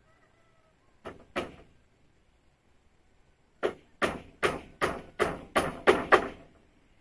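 Sharp blows of a hand tool striking wood: two about a second in, then a quick run of eight at about three a second.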